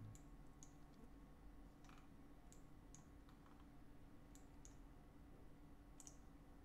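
Faint, scattered clicks of a computer mouse, about nine in a few seconds, over a faint steady hum.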